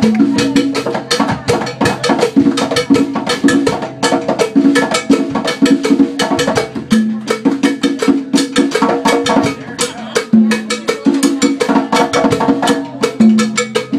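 Live band playing a fast groove: dense drum and percussion hits over a repeating bass line.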